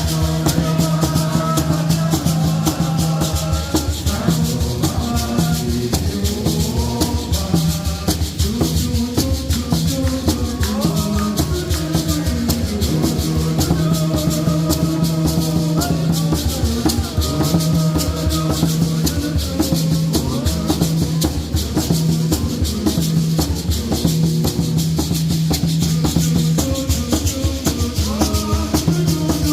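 Music with a steady shaker rattling throughout, over a bass line and a melody.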